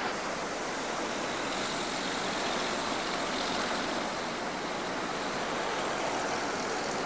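Steady rushing noise inside a moving tour bus, road and engine noise with no distinct events.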